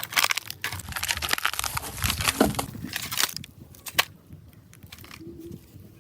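Dense crunching and crinkling, as of material being crushed or handled, for about three seconds, then quieter with a single sharp click about four seconds in.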